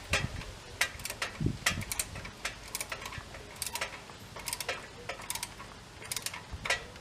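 Irregular sharp metallic clicks and taps, about one or two a second, from hand work on a bicycle's parts.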